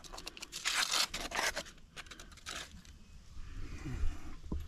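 National Mower Company reel mower's reel blades sweeping past the freshly lapped bed knife and snipping paper: several quick scraping, tearing cuts in the first three seconds, then quieter rustling. The clean cut shows that reel and bed knife are now sharp after backlapping.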